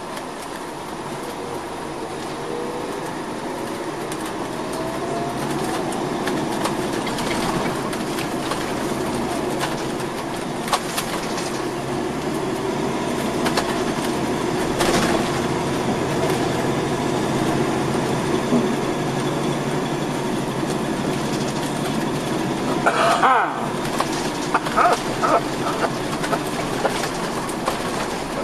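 Cabin noise inside a 2004 MCI D4500CL coach under way: steady road rumble and drivetrain noise from its Caterpillar C13 diesel and Allison automatic transmission, growing louder over the first several seconds as the coach gathers speed, with a rising whine a few seconds in. A sharp clatter sounds near the end.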